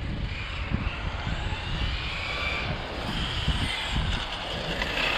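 Brushless electric motor of an MCD XR5 1/5-scale RC car (SSS 230KV motor) whining, its pitch rising and falling as the car speeds up and slows, over a low, uneven rumble.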